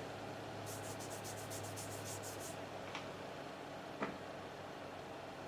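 Faint, quick rubbing strokes, about ten in under two seconds, as pressed powder is swatched onto skin, followed by two light clicks.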